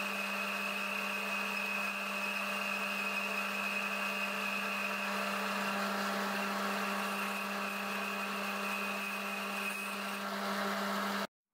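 Metal lathe running with a boring bar cutting inside a metal pipe to enlarge its bore: a steady motor hum with a high steady tone above it, cutting off abruptly near the end.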